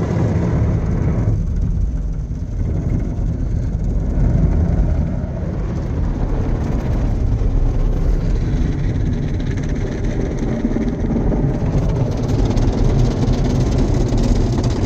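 Sonny's car wash tunnel equipment working over the car, heard from inside the cabin: water spray and cloth brushes beating on the body and windows make a steady, loud wash of noise over a heavy low rumble.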